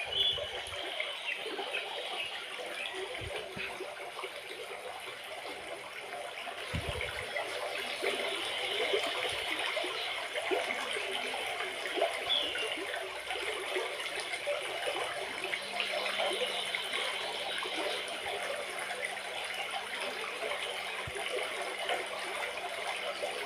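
Water trickling and lapping in a shallow pool as a pygmy hippo calf moves through it, a steady running-water sound.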